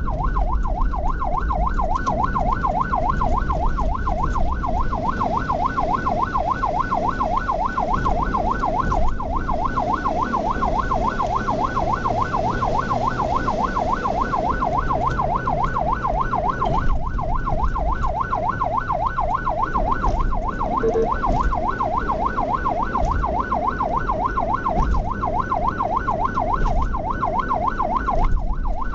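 Ambulance's electronic siren on a fast yelp, its pitch sweeping up and down about five times a second without a break, over the low rumble of the moving vehicle.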